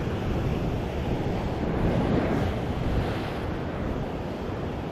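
Heavy surf breaking and washing over a rocky shoreline, a steady rushing sea with small swells in loudness. Wind buffets the microphone.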